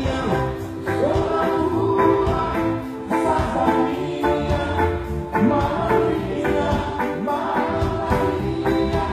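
Reggae band playing live with a lead vocalist singing over a steady beat.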